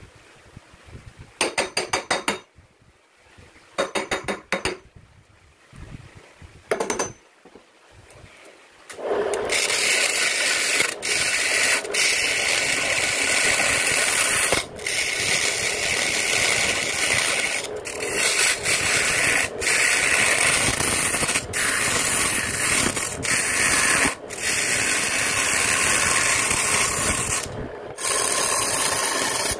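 Turning tool cutting a jackfruit wood blank spinning on a lathe: a loud, steady scraping hiss that breaks off briefly every second or two as the tool comes off the wood. It starts about nine seconds in, after a quieter stretch with a few short rasping bursts.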